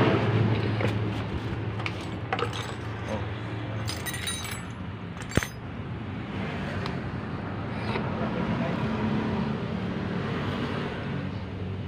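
Metal clinks and clicks of backhoe starter-motor parts and tools being handled during assembly, with one sharp click about five seconds in, over a steady low engine hum.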